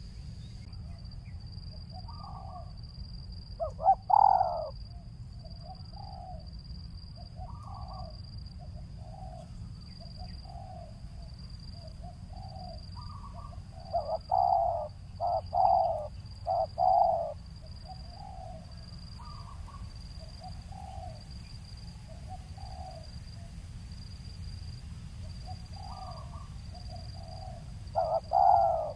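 Spotted dove (tekukur) cooing: a run of soft coos, with louder clusters of quick coo notes about four seconds in, around the middle and near the end.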